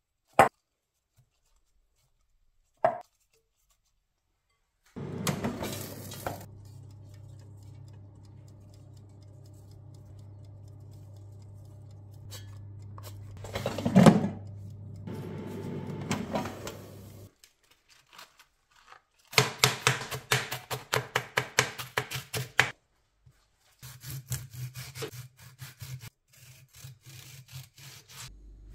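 Two short knocks, then an air fryer's fan starting and running with a steady hum, with a loud clatter as the basket is handled partway through. After it stops, a knife chops rapidly on a cutting board and then slices through a tomato near the end.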